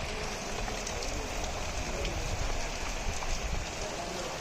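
Steady rain falling, an even hiss with scattered single drops ticking through it.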